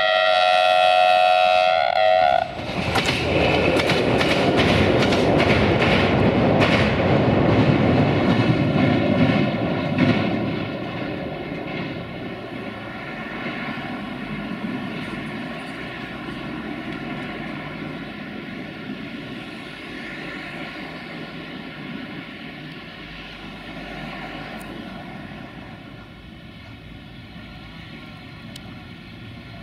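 Duewag class 628 diesel multiple unit sounding its horn once for about two seconds, then passing close with its wheels clicking over rail joints. The noise of the passing train then fades slowly away over the next twenty seconds.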